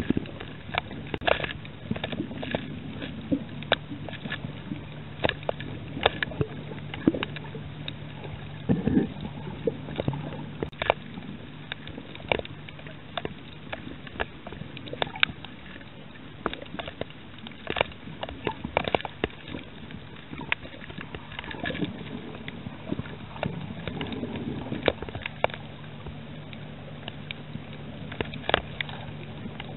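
Underwater sound over a coral reef: irregular sharp clicks and crackles over a steady low hum.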